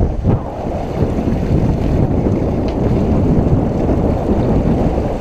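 Steady wind buffeting the microphone aboard a sailboat under way, a dense low rumble with no distinct events.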